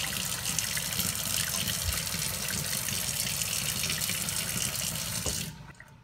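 Kitchen tap running steadily into a stainless steel sink, cutting off suddenly near the end.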